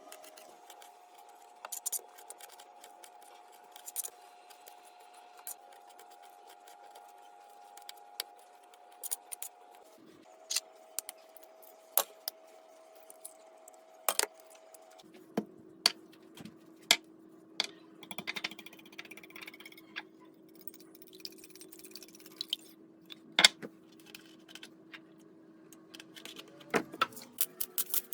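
Scattered clicks, taps and clinks of kitchen utensils and dishes being handled, over a faint steady hum that drops in pitch twice.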